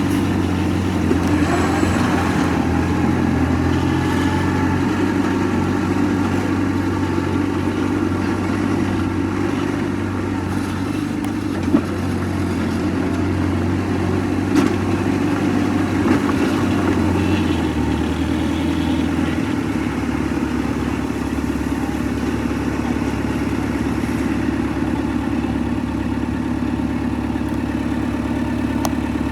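Diesel engine of heavy earthmoving equipment running steadily, its note dropping lower a little past the middle. A few sharp knocks come through in the middle.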